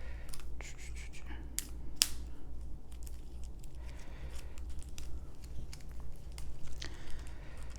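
Plastic shrink wrap being torn and peeled off decks of game cards, crinkling, with a few sharp clicks about one and a half to two seconds in.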